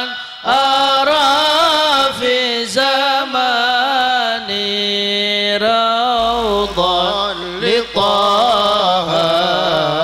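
Male voices singing an Arabic shalawat through microphones and a PA, in long wavering melismatic lines, over a steady held instrumental accompaniment; a low bass note comes in about six seconds in.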